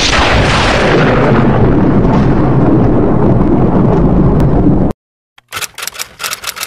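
A cinematic boom sound effect: one heavy hit with a long rumbling tail that cuts off abruptly about five seconds in. After a brief silence comes a rapid, even run of typewriter-style clicks, about nine a second, as the title text types out.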